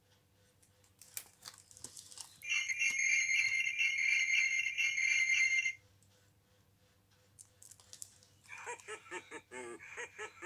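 Pages of a pop-up sound book rustling as a page is turned, then the book's small electronic speaker plays a tinny sleigh-bell jingle for about three seconds. Near the end it starts a tinny, repeated "ho ho ho" Santa laugh.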